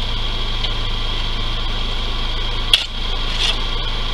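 Steady hum under a high, even drone of night insects, with one sharp metal clank a little past halfway, from a long-handled tool worked at a pickup truck's bare wheel hub during a roadside flat-tire change.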